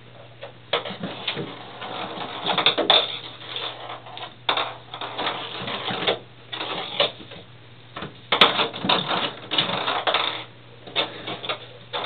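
Ping pong ball clattering and skittering around a bathtub as kittens bat it, in bursts of rapid light taps with short pauses between, over a steady low hum.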